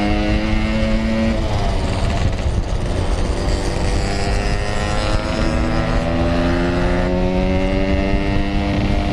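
Yamaha RX-King two-stroke single-cylinder motorcycle engine pulling under throttle, its pitch climbing steadily, easing off about a second and a half in, then climbing again from about five seconds in. Wind rush on the helmet microphone runs under it.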